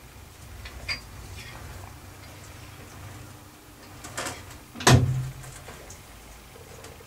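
A low steady hum with a few light clicks, then one sharp, loud knock about five seconds in that rings briefly.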